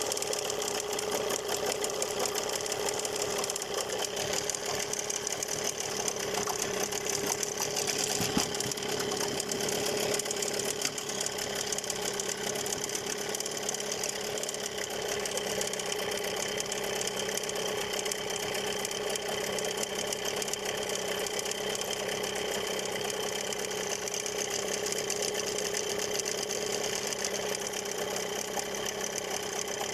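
Gladiator 9.8 outboard motor running steadily, with a rapid rattling noise in its sound that the owner suspects is the ignition plate vibrating.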